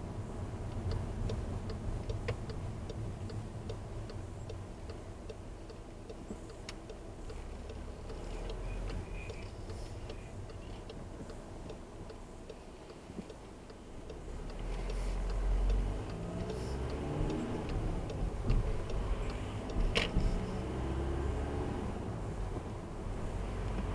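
Car driving on a wet road, heard from inside the cabin: steady tyre and road noise, with a fast regular ticking through the first several seconds, typical of a turn indicator going round a roundabout. The low rumble grows louder a little past halfway, and there is one sharp click near the end.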